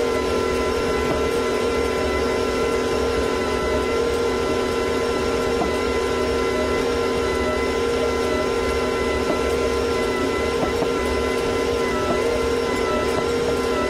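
John Deere 8320R tractor's six-cylinder diesel engine running steadily under load while pulling a disk harrow through dry soil, with a steady whine over the engine noise.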